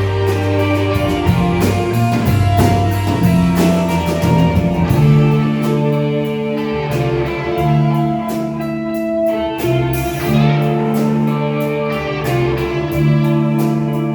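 Instrumental break of a song: guitar-led music with sustained chords over a steady beat.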